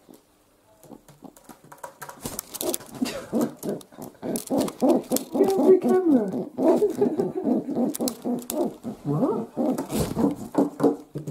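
Feral pigeon cooing at close range: a dense run of low, throaty coos rising and falling in pitch, starting about two seconds in, mixed with short sharp scuffing noises.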